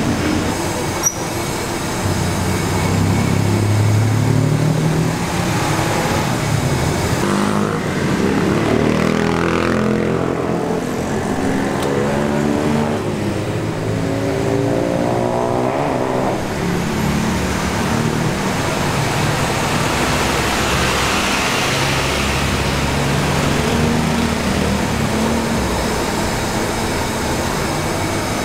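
Street traffic with vehicle engines running and passing by, their pitch rising and falling as they speed up and slow down, over a steady roadway noise.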